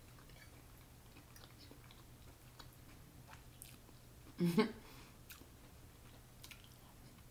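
A person chewing food, with faint wet mouth clicks over a low steady hum, and one brief louder sound about four and a half seconds in.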